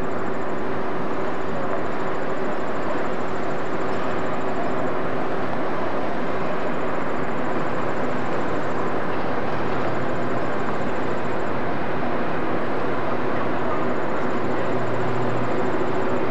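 Steady rumble and hiss with an unbroken mid-pitched hum from the steamship Kinsman Enterprise's machinery as the lake freighter moves slowly past.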